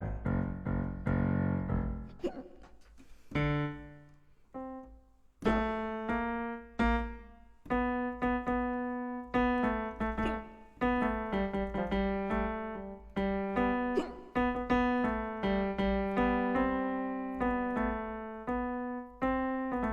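A piano-style keyboard playing: a held chord at the start, a few scattered notes, then a steady run of struck notes from about five seconds in, each dying away.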